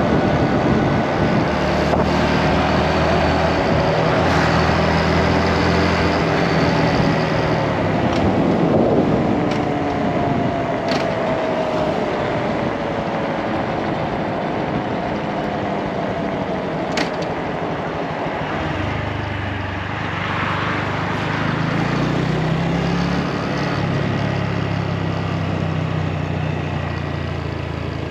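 Motorcycle engine running under way with heavy wind noise on the microphone. The engine note slides down from about 8 to 14 s as the bike eases off, then the low engine sound comes back strongly about two-thirds of the way through as it is ridden on.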